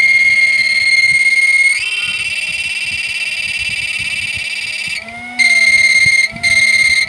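High-pitched electronic whine from a battery-powered mini MOSFET driver board, the strange sound it is making. About two seconds in the tone steps up slightly, turns warbly and quieter, and it cuts out briefly twice near the end.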